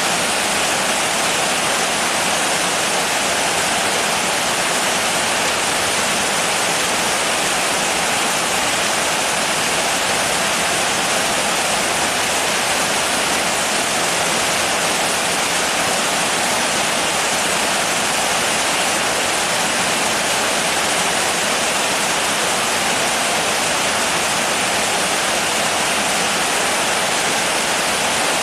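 Rain falling steadily, a dense even hiss with no single drops or other sounds standing out.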